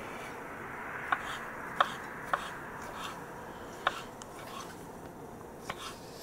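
Kitchen knife chopping pickled gherkins on a wooden cutting board: a handful of sharp, irregular taps of the blade striking the board.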